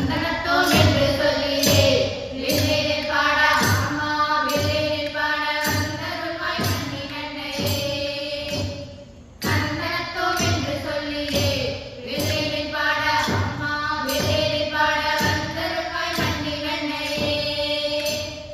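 Girls' voices singing a Tamil villupattu (bow song) to a steady percussion beat from the struck bow, clay pot and tambourines. The song breaks off briefly about nine seconds in and then resumes.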